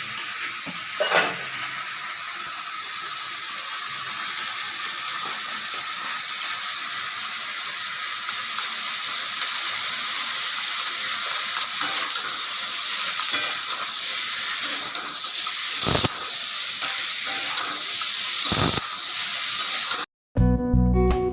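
Potatoes sizzling as they fry in hot oil: a steady hiss that grows a little louder about halfway through, with a few sharp knocks. It cuts off suddenly near the end, and guitar music starts.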